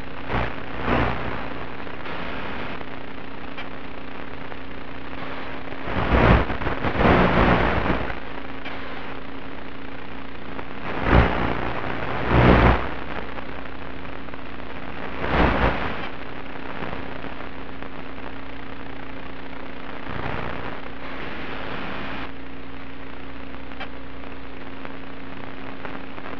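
Audio carried on an FPV aircraft's analog video link in flight: a steady hiss with a faint steady hum, broken by several louder rushing bursts, the longest about two seconds long a quarter of the way in.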